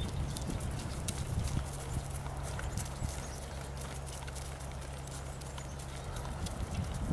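Hoofbeats of a horse trotting on grass: a run of soft, irregular hoof strikes over a steady low rumble.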